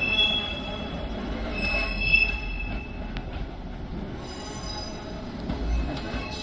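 JR 115-series electric train rolling slowly through the points, with a low rumble. Its wheels squeal in high tones that come and go: at the start, about two seconds in, and again from the middle on. A single click sounds about three seconds in.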